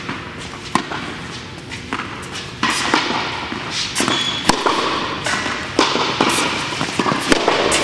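Tennis rally on an indoor hard court: rackets striking the ball and the ball bouncing, a string of sharp pops about a second apart, with hits from players on neighbouring courts mixed in.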